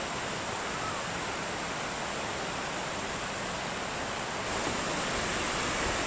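Steady rush of water over rocks and small waterfalls in a shallow, boulder-strewn stream.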